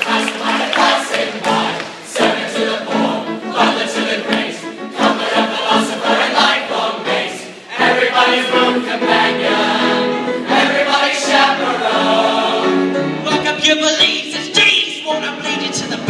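Large mixed choir singing together in full voice, many voices in harmony.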